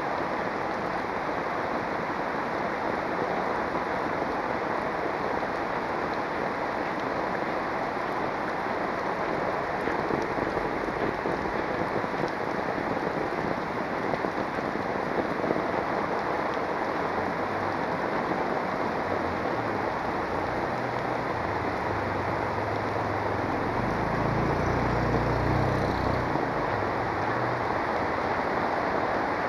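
Heavy rain falling steadily on a paved street, a dense even hiss. A low rumble comes in during the second half, loudest a few seconds before the end.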